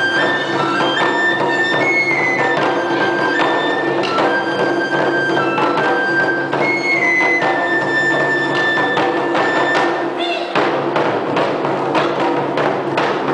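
Wadaiko ensemble: a fue bamboo flute plays a melody over steady strokes on a shime-daiko and a katsugi okedo-daiko. About ten seconds in the flute drops out and the drums carry on alone, with quicker strokes.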